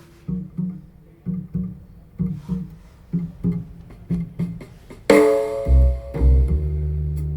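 Music played through a car audio system with subwoofers: plucked bass notes in pairs, then about five seconds in a loud hit and a deep, long-held bass note.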